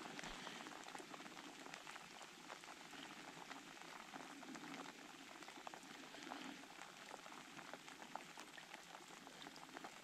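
Faint running creek water: a steady hiss with a fine crackle of many tiny ticks.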